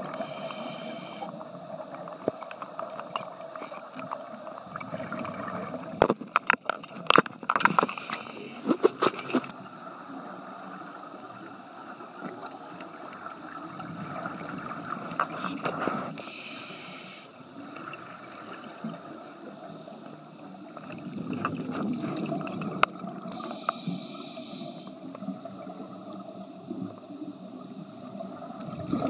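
A scuba diver's breathing through a regulator, heard underwater. Each inhale is a hiss, heard three times, and the exhales come out as gurgling bubbles, with a spell of sharp crackling clicks a few seconds in.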